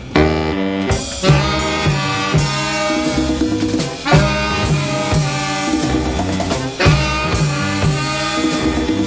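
Big-band jazz with horns (saxophones, trumpets and trombone) over bass and drums, a phrase with a strong accent repeating about every second and a half.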